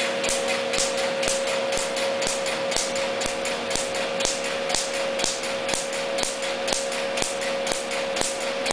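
Q-switched tattoo-removal laser firing pulse after pulse into the skin, each pulse a sharp snap, several a second in an even rhythm, over a steady hum.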